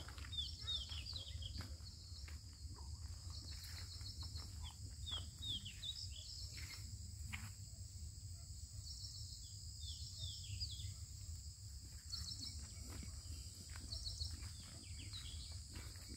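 Outdoor rural ambience: birds calling in repeated short chirps and quick falling whistles over a steady, high-pitched insect drone, with a faint low rumble beneath.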